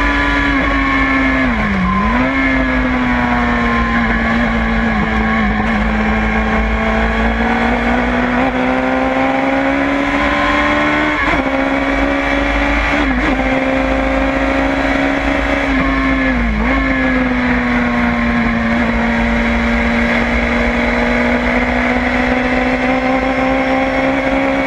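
LFC Tornado endurance prototype's engine heard onboard, running hard at near-steady high revs down the straights. The pitch dips sharply and briefly about two seconds in and again about two-thirds of the way through as the car lifts and brakes for corners, with short breaks in between that fit gear changes. Road and wind rumble sit beneath it.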